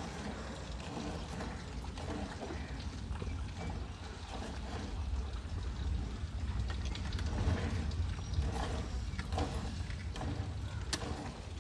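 Hand milking a cow: squirts of milk from the teats hitting the milk in a partly filled steel bucket, coming in repeated short spurts, over a steady low rumble.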